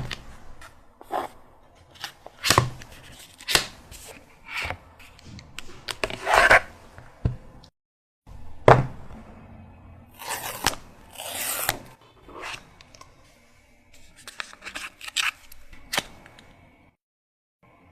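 Apple Watch packaging being handled and opened: irregular taps, clicks and scrapes of cardboard and paper, with a longer rustling, tearing stretch about ten seconds in.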